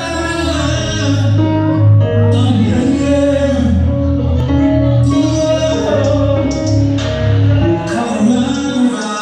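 Live performance of a song heard through a phone's microphone: a voice singing over loud music with a heavy, steady bass line.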